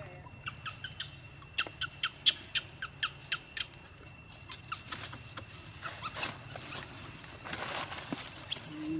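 Outdoor ambience: a quick run of about a dozen sharp chirps, roughly three a second, then scattered fainter ones, over a steady high insect drone. A brief rustle near the end.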